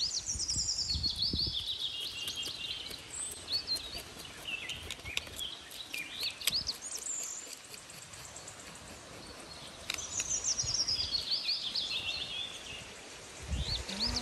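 Songbird singing: a phrase of quick high notes falling in pitch, heard twice, with scattered chirps in between. There is a low rumble in the first second or so.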